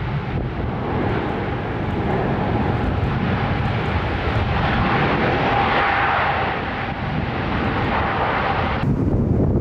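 Airbus A380 jet engines rumbling with a faint steady whine as the airliner passes, swelling to its loudest about midway. Near the end the higher hiss drops out abruptly, leaving a low rumble.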